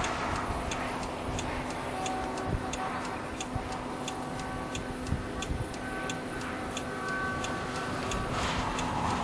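A car's indicator flasher ticking steadily, about one and a half clicks a second, over a steady background of rushing noise and a faint hum.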